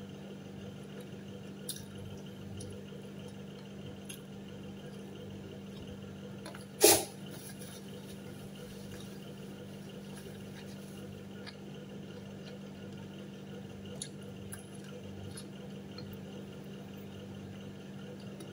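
A person eating pizza: faint chewing and mouth sounds over a steady low hum, with a few small clicks and one sharp knock about seven seconds in.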